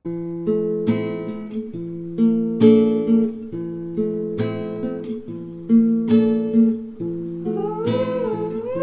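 Background music: acoustic guitar strumming chords, with a gliding melody line joining near the end.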